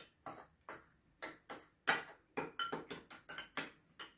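A spoon clicking against a small ceramic bowl as an egg-white mixture is beaten by hand, about three uneven clicks a second.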